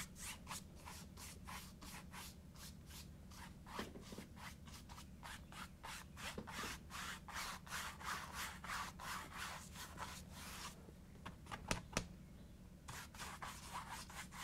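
Paintbrush scrubbing back and forth on canvas, blending oil paint in quick, even strokes, about four a second. The strokes stop for about two seconds near the end, with a couple of light clicks, then start again.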